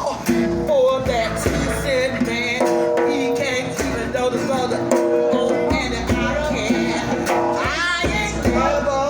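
Live blues music: a singer holding long, wavering notes without clear words over electric guitar and a steady low beat.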